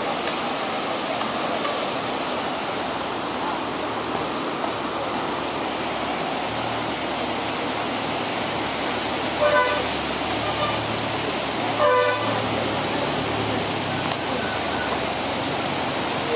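Steady rush of whitewater river rapids, broken a little past halfway by two short horn toots about two and a half seconds apart.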